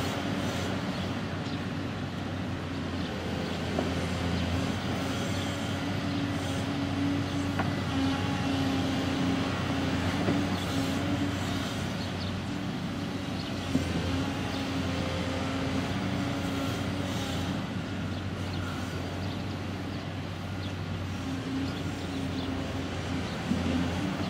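Volvo EW160D wheeled excavator's diesel engine running steadily under load while digging, with a couple of sharp knocks from the bucket, one about halfway through and one near the end.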